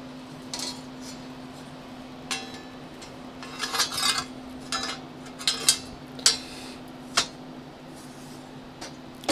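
Thin plasma-cut steel frame plates clinking and clattering against each other and the bench as they are picked up and handled: a run of sharp, irregular metallic clinks.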